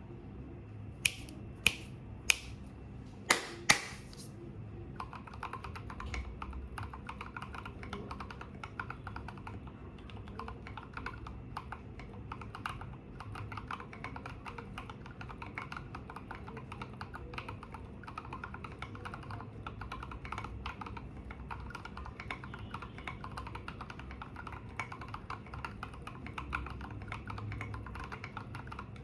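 Steady, fast typing on an IDOBAO ID80 mechanical keyboard with lubed Durock Koala tactile switches (67 g) and SA keycaps, giving a deep, thocky key sound. It is preceded in the first few seconds by five sharp, loud clicks.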